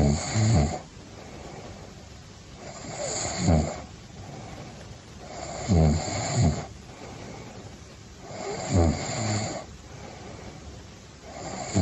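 A person snoring in a steady, regular rhythm, one snore about every three seconds, five in all. This even pattern is what the sleep specialist describes as plain snoring that, if it always stays like this, is no problem.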